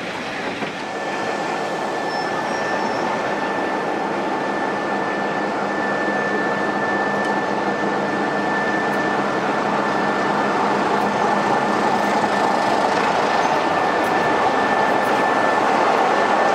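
Green heritage diesel locomotive running as it draws slowly alongside, a dense engine noise with a steady high whine, growing louder as it nears.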